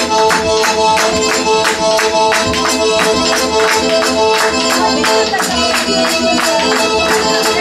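Lively Circassian dance music with held, steady melody notes over a fast, even percussive beat, with guests clapping along.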